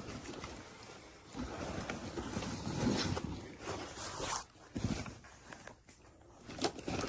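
Rustling and a few sharp knocks of stored items being rummaged through and moved by hand.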